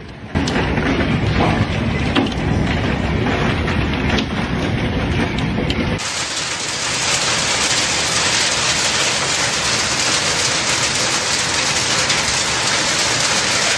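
Hailstorm: hailstones and heavy rain pelting down, with many sharp, separate hits among a dense rush of noise. About six seconds in the sound changes abruptly to a steadier, brighter hiss of hail and rain falling on a lawn.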